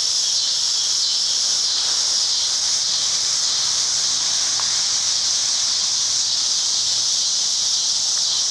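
Cicadas singing in a loud, steady chorus, a continuous high-pitched buzz that never lets up.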